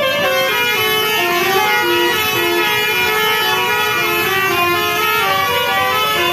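Tour-bus Basuri telolet air horns playing a quick melody of short stepped notes, several tones sounding together and changing pitch every fraction of a second.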